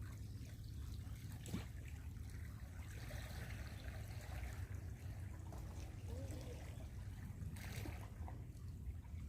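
Gentle water trickling and lapping, over a steady low rumble, with two brief clicks.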